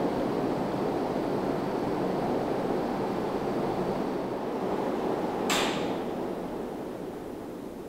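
Emerson Heat Fan ceiling fans running, a steady whoosh of moving air from the blades over a light motor hum. A single sharp click about five and a half seconds in, after which the sound slowly gets quieter.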